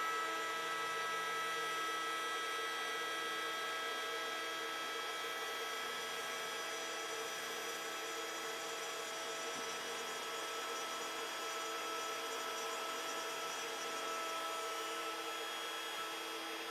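Genmitsu 3018 Pro CNC router's spindle running at full speed while the bit cuts a clockwise arc through basswood, widening a channel. The sound is a steady whine made of several tones.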